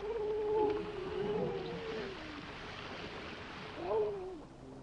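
Seal calling: a long wavering moan that lasts about two and a half seconds, then a shorter moan near the end that rises and falls, over a faint steady hiss.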